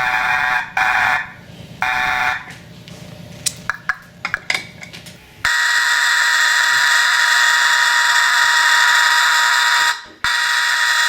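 Fire alarm horn sounding under test. It gives a couple of short pulsed blasts, then a few seconds of quieter clicking, then from about halfway through a loud steady continuous tone that cuts out briefly near the end and comes back.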